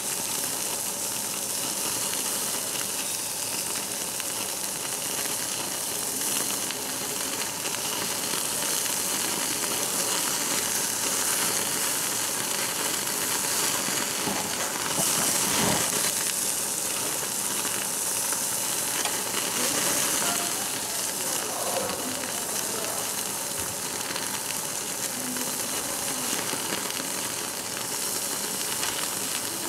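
Thick slices of black pork sizzling steadily on a hot cast-iron grill plate, with a single sharp click a little past halfway.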